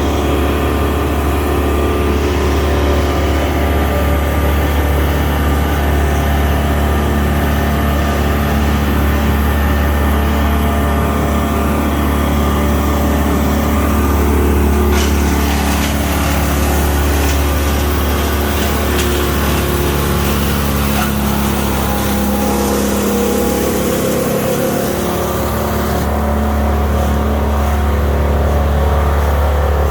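A large engine running steadily with a deep hum. Its lowest tone dips briefly about three-quarters of the way through.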